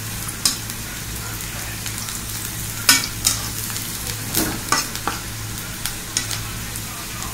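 Chopped onions sizzling in hot oil in a karai while they are stirred, the utensil scraping and knocking against the pan about once a second. The onions are browning.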